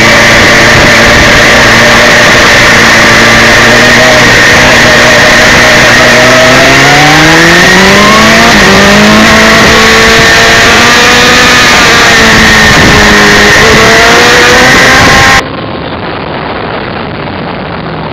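Suzuki GSX-R1000 inline-four sport-bike engine under way, very loud and harsh. Its pitch holds steady, climbs as the bike accelerates, holds, dips and climbs again. About fifteen seconds in it cuts to a quieter, duller sound of engine and wind.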